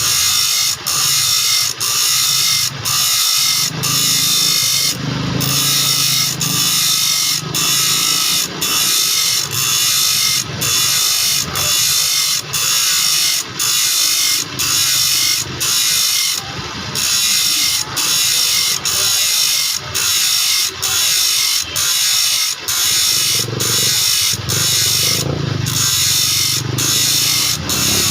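Saw blade teeth being sharpened: a harsh metal-on-metal grinding or filing rasp in even strokes, about one a second, each broken off by a brief pause.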